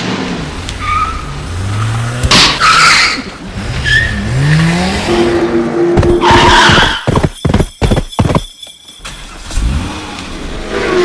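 Car driving sound effects: an engine revving in short rising sweeps, with noisy tyre-skid bursts and squeals. A run of rapid clicks comes about seven seconds in.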